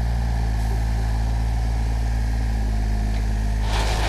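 A large engine running steadily at a low, even pitch. A burst of rougher noise joins it about three and a half seconds in.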